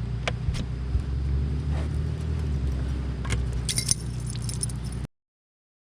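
Steady low hum of the boat's motor, with scattered metallic clicks and a brief jangling rattle about four seconds in; the sound cuts off suddenly about five seconds in.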